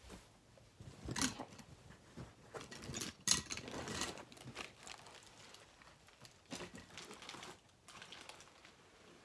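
Rustling and crinkling of things being handled and moved about, in short irregular bursts, the strongest about three seconds in.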